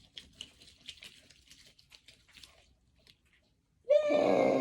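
Faint sticky crackling and popping of homemade slime being worked by hand. About four seconds in comes a loud, high-pitched, clearly pitched sound held for about a second, sinking a little at the end.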